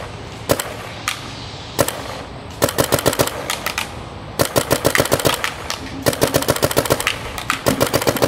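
GOG Shocker CVO mechanical spool-valve paintball marker firing: a few single shots, then several rapid strings of shots.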